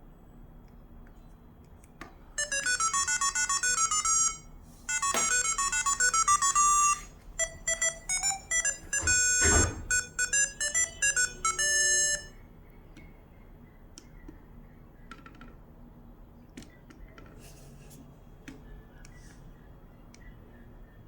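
ZTE V617 mobile phone ringtone playing through the phone's speaker: a bright electronic melody of rapid, repeating high notes, broken by short pauses. It starts about two seconds in and stops suddenly about twelve seconds in, leaving only a few faint clicks.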